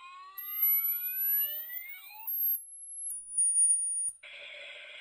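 Electronic siren wail from the GS-501 animal repeller's speaker, sliding slowly upward in pitch for about two seconds, with a thin high whistle-like tone jumping between pitches above it until about four seconds in. Just after four seconds a steady harsh, hissing sound from the repeller takes over.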